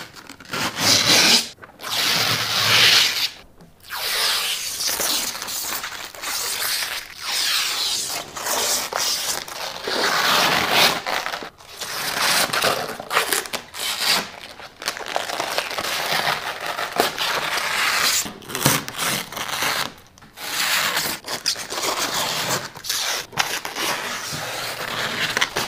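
Protective plastic film being peeled off and handled, a rustling, tearing noise in irregular stretches with short pauses.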